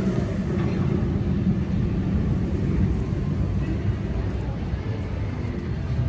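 A steady low rumble of outdoor background noise.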